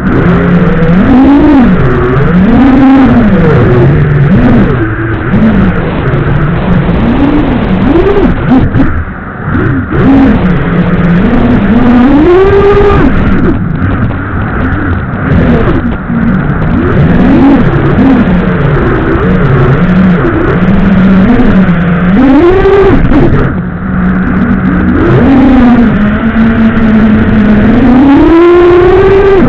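FPV quadcopter motors whining in flight, their pitch repeatedly swooping up and down with throttle and settling at a steady hum between climbs.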